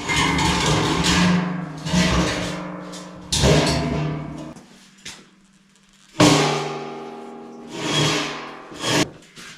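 Fist blows on a welded steel shelf: several sudden hits, each ringing on and fading over a second or more, with a short lull about halfway through.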